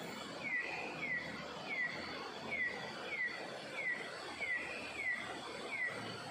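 An animal call repeated at an even pace, a short high note sliding down in pitch about every two-thirds of a second, over steady outdoor background noise.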